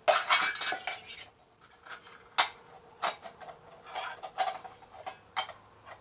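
Toy pots, pans and lids clattering: a busy rattle at first, then a series of separate sharp knocks and clinks as they are handled and set down.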